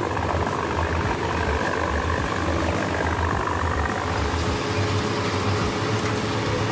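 Tractor-driven Heizohack HM 8-400 drum wood chipper running steadily while chipping leafy branches, over a low, even engine drone.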